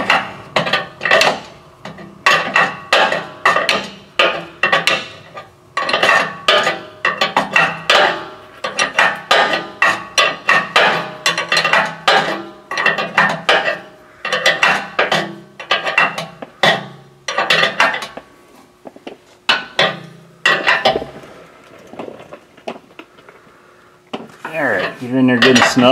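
A 7/8-inch wrench clicking and clinking on the hex of an oil filter-head adapter as it is turned tight in short swings: several sharp metallic clicks a second, each ringing briefly, thinning out near the end as the fitting comes snug.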